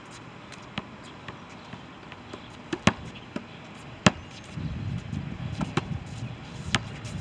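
A basketball bouncing on an asphalt court: a few single, sharp bounces spaced a second or more apart, the loudest about four seconds in. A low rumble comes in a little after halfway.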